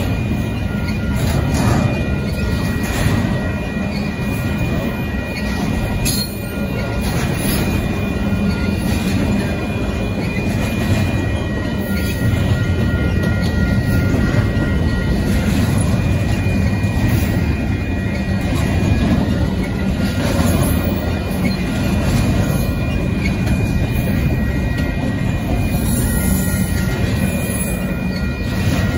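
Union Pacific intermodal freight train rolling past, its double-stack container cars making a steady, loud noise of wheels on rails, with thin high-pitched tones coming and going over it.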